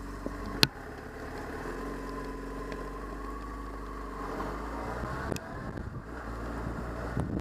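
Yamaha FZ6's inline-four engine running as the motorcycle pulls away, its note rising about four seconds in. A sharp click near the start and another about five seconds in.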